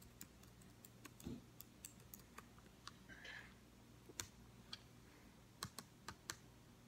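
Faint, irregular clicks and taps, a few a second, over a low steady room hum: fingers tapping and clicking on a device while browsing.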